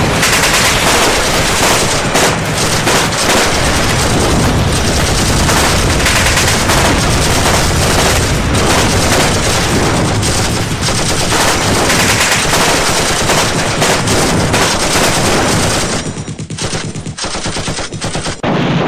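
Loud, continuous gunfire: rapid machine-gun fire with many overlapping shots, breaking into sparser bursts near the end.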